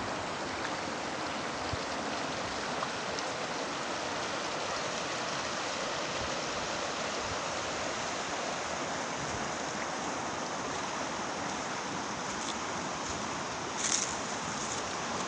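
River water flowing steadily, an even rushing noise, with a short high crackle near the end.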